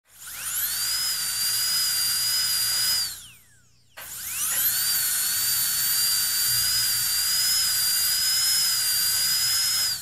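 Dentist's drill spinning up with a rising whine, running at a steady high pitch, then winding down and stopping about three seconds in. It starts again a second later, runs steadily, and begins to wind down near the end.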